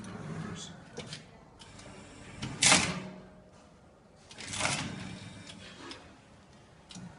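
Four-cup tray sealing machine running a sealing cycle with the cup tray pushed in: a few light mechanical clicks, a short loud burst of noise about two and a half seconds in, and a longer, softer one about four and a half seconds in.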